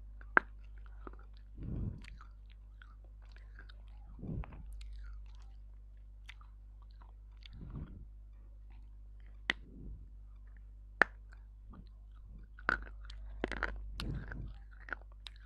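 Dry clay chunks bitten and chewed right at a clip-on microphone: sharp, crisp snaps as pieces break off between the teeth, with slower crunchy chewing in between. The snaps come thicker near the end, over a steady low electrical hum.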